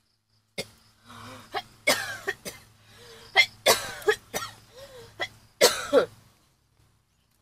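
A person coughing and clearing their throat in a run of about ten short, sharp bursts over some five seconds.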